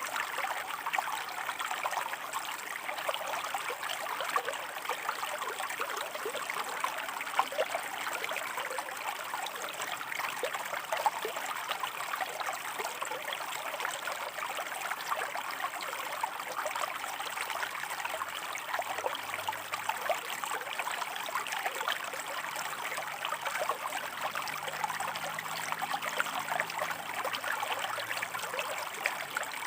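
Shallow stream of water running and trickling over rocks, a steady burbling with many small splashes.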